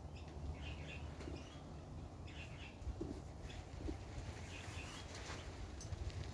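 Birds chirping in short bursts every second or so over a low, steady rumble.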